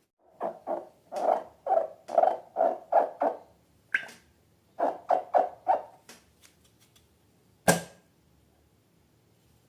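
Slime being squeezed and worked by hand: a run of short wet squishes, about three a second. A sharp click comes about four seconds in, then a few more squishes, and one loud click near the end.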